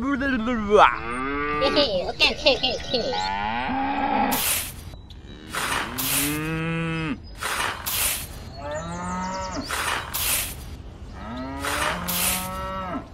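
Cattle mooing, a series of drawn-out moos one after another. From about four seconds in, short crisp scrapes of a small metal shovel scooping dry rice grains come between the moos.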